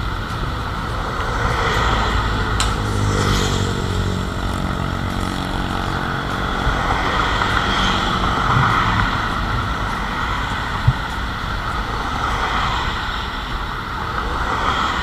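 A vehicle engine running steadily, with a sharp click about two and a half seconds in and a short shift in engine pitch just after.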